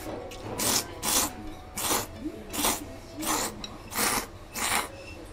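A person slurping Echizen soba (buckwheat noodles) from a bowl: seven quick, hissing slurps in a row, each a fraction of a second long, spaced a little over half a second apart.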